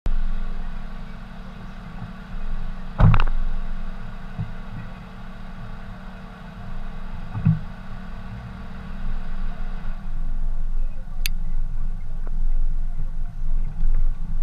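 Vehicle engine running with a steady low rumble, broken by two thumps, the loudest about three seconds in and another about seven and a half seconds in. About ten seconds in the sound changes and gets louder as the vehicle starts rolling forward along the dirt track.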